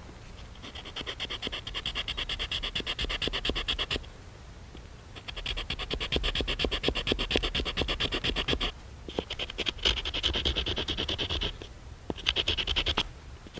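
A hand-held stone rasped quickly back and forth across a wooden shaft, grinding the wood down to sawdust. It comes in four runs of rapid scraping strokes with short pauses between.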